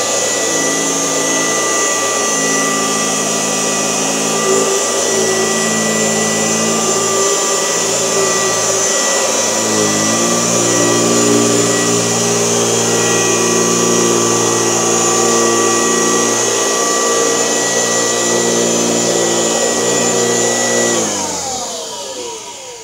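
1972 Kirby Classic 1CR vacuum cleaner running steadily on a mattress, with a high motor whine over its hum. Its pitch shifts slightly about ten seconds in, and near the end it is switched off and the motor winds down.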